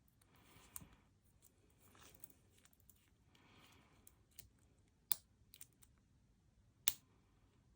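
Lock pick and tension wrench working inside a laminated steel padlock: a few scattered sharp metallic clicks, the loudest about seven seconds in. The lock is gritty and stiff.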